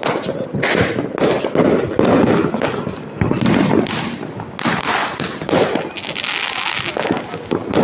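Fireworks and firecrackers going off in quick succession, a dense run of overlapping bangs and crackles, with a steady hiss lasting about a second near the end.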